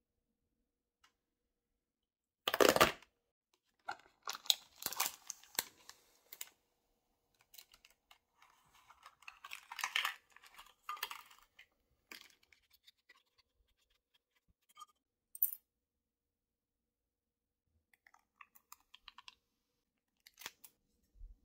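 Hands handling a cardboard candy-kit box, its plastic tray and foil powder packets: irregular crinkling and rustling, with one loud tearing rustle about three seconds in. Scissors snip a foil packet open near the end.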